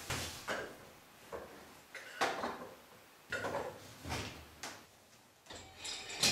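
Aluminium Festool LR 32 perforated guide rail being slid and shifted across a workbench top: a series of light clunks and scrapes spaced about half a second to a second apart, with a denser clatter near the end as the rail is clamped down again.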